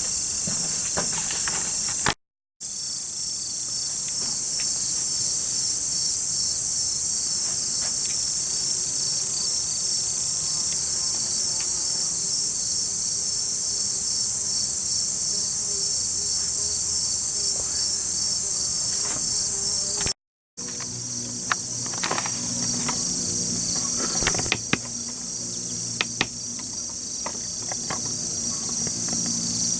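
A dense chorus of insects trilling, steady and high-pitched with a fast pulsing. It cuts out completely twice for a fraction of a second, and a few faint clicks come in during the second half.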